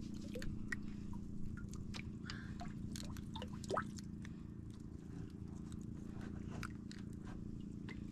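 Scattered small clicks and taps of fish and hooks being handled as fish are worked off a multi-hook handline, over a steady low hum. A brief rising squeak comes just before four seconds in.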